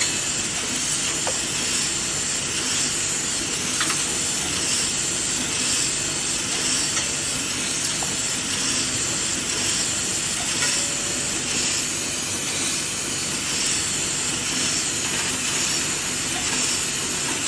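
Lollipop packaging machine running: a steady mechanical whir with a strong hiss over it and a few faint ticks.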